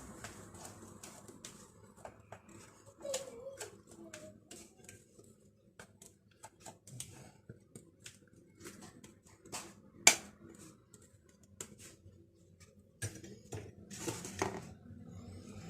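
Scattered light clicks and knocks of kitchen utensils on a mixing bowl and cake pan while cake batter is poured into a bundt pan, with one sharper knock about ten seconds in and a quick run of knocks near the end.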